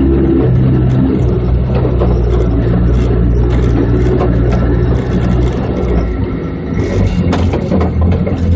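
Off-road 4x4's engine running steadily under load as it drives a rutted mud trail, with scattered knocks from the rough ground. About five seconds in the engine note eases and wavers, dipping briefly, then picks back up.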